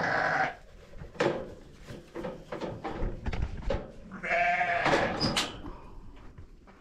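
Sheep bleating twice: a short bleat at the start and a longer one about four seconds in, with light knocks and rustling in between.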